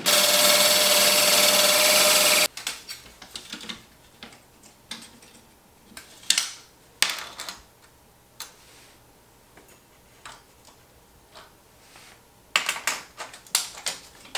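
Power drill fitted with a diamond hole-saw bit running at a steady speed with a steady whine, then cutting off suddenly about two and a half seconds in. After that come scattered clicks and knocks, with a quick run of clacks near the end.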